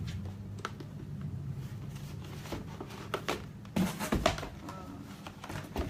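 Gift packaging being handled and opened by hand: scattered rustles and small clicks, with a louder burst of rustling about four seconds in. A steady low hum sits underneath.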